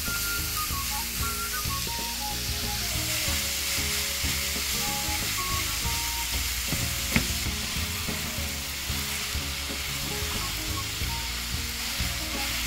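Ground beef sizzling as it fries in a non-stick pan with onions and scallions, while a wooden spoon stirs it and breaks it up. A single sharp knock comes about seven seconds in, and soft background music plays underneath.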